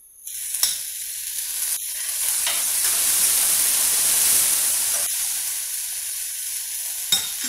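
Chopped tomato hitting hot oil and onion in a frying pan, sizzling loudly, the sizzle swelling through the middle as it is stirred. A spatula clicks against the pan a few times.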